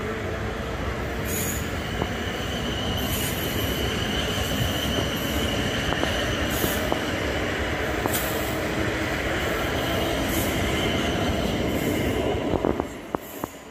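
Class 450 Desiro electric multiple units running past along the platform: a steady rumble of wheels on rail with a steady high squeal and sharp clicks every second or two. The sound falls away suddenly near the end as the last carriage clears.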